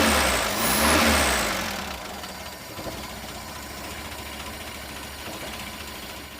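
Petrol Mitsubishi L300 van engine revved once more about a second in, with a high whistle rising and falling with the rev. It then drops back to a steady idle.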